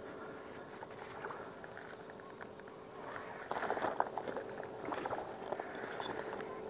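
Water splashing and sloshing at the edge of the shallows as a fishing landing net and a hand work in the water, starting about three and a half seconds in and lasting a couple of seconds.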